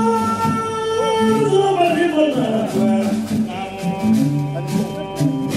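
Malian donso (hunters') music performed live: a man sings long, wavering held notes over the repeating low plucked pattern of a donso ngoni.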